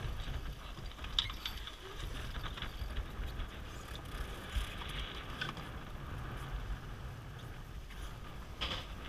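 Sailboat winch ratcheting in scattered clicks as the jib sheet is hauled in during a tack, over a steady rumble of wind on the microphone and water rushing past the hull.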